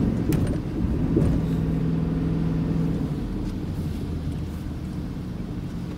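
Car driving on a wet winter road, heard from inside the cabin: a low engine hum and tyre noise. The hum drops away about halfway and the noise gradually quiets toward the end.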